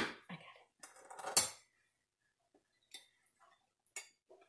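Kitchen clatter of utensils against cookware: a few sharp clinks and knocks, the loudest about a second and a half in, then scattered light clicks.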